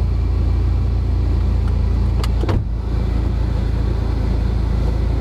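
Mitsubishi Lancer Evolution X's turbocharged four-cylinder engine idling steadily, heard from inside the cabin, with a couple of brief clicks a little past two seconds in.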